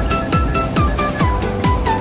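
Electronic dance music with a steady four-on-the-floor kick drum, about two and a half beats a second, under a stepping synth melody.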